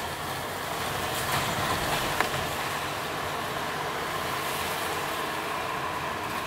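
Steady road and engine noise of a car driving, heard from inside the cabin, with two short sharp knocks, one just over a second in and a louder one just over two seconds in.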